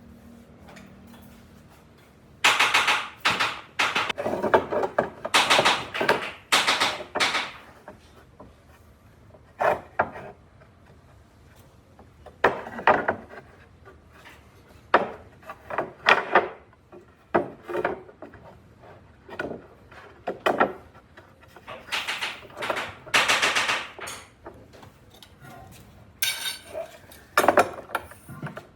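Irregular hand-tool work on wood: a run of short scraping and knocking strokes, each under about a second, some with a brief metallic ring, in uneven clusters with pauses between.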